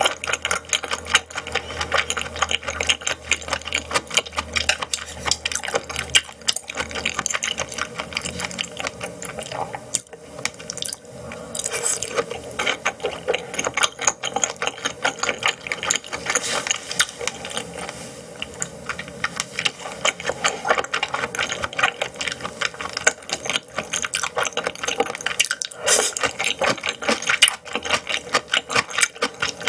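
Close-miked eating sounds: a person chewing raw yellowtail sashimi, a dense run of wet smacking and clicking mouth sounds with no pause.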